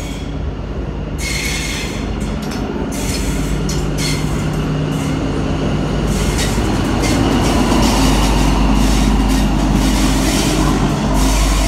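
NSW TrainLink XPT diesel passenger train moving slowly past, with wheels squealing and clicking on the rails. The low hum of the diesel power car grows louder as it draws level, about two-thirds of the way in.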